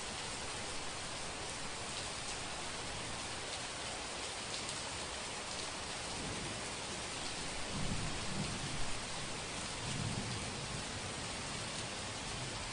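Steady heavy rain hissing throughout, with a low roll of thunder that builds about halfway through. It is loudest twice, a couple of seconds apart, then dies away before the end.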